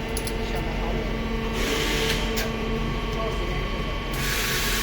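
Laser welding machine running with a steady electrical hum, broken by two bursts of hiss, one about a second and a half in and one near the end.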